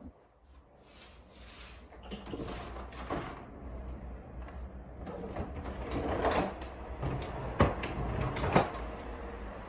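Household handling sounds: a series of rustles and scrapes, with two sharp knocks about a second apart near the end.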